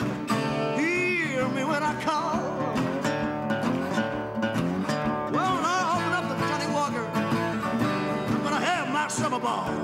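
Acoustic blues: a solo acoustic guitar picked in a steady rhythm, with a man singing over it in gliding, wavering phrases.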